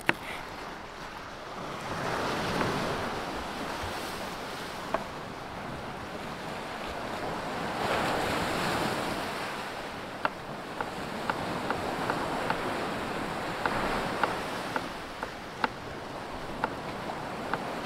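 Sea surf washing on the shore, swelling twice, with some wind on the microphone. Through the second half, a kitchen knife cutting bell peppers on a wooden cutting board makes a run of sharp taps, about two a second.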